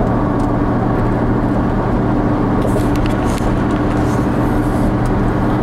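Steady motor-vehicle hum, a low constant drone with no rise or fall in pitch, like a car running.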